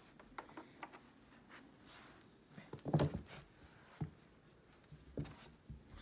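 Power cord of a Hoover Power Drive Supreme upright vacuum being released and unwound by hand: scattered light clicks and knocks, the loudest about three seconds in.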